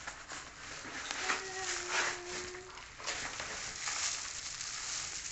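Plastic packaging rustling and crinkling as a waist twisting disc in its plastic bag is pulled from its cardboard box, with a short steady tone about a second in.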